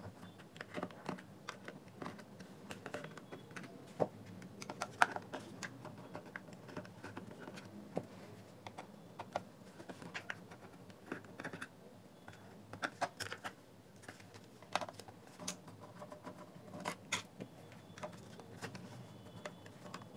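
Screwdriver backing small screws out of a JBL Charge speaker's plastic battery cover: faint, irregular clicks, ticks and scrapes of the metal tip in the screw heads and against the plastic, with a few sharper clicks now and then.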